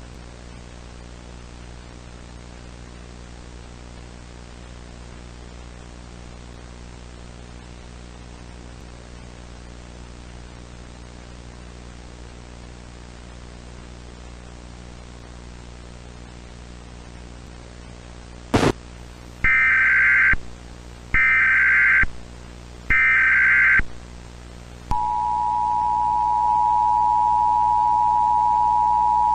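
Emergency Alert System broadcast tones: a steady buzzing hum with hiss, then a click, then three SAME header data bursts of about a second each, a second apart. About three-quarters of the way in, the two-tone EAS attention signal (853 and 960 Hz) starts and holds steady.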